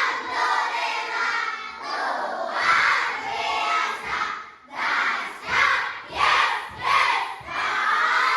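A group of children shouting a reply together in unison, a chanted group response. In the second half it breaks into a run of short, loud shouts about half a second apart.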